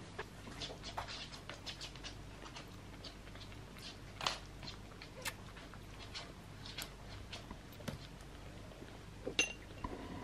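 Newborn kitten suckling formula from a syringe nipple: a run of small wet smacking clicks, with a louder click about four seconds in and another near the end.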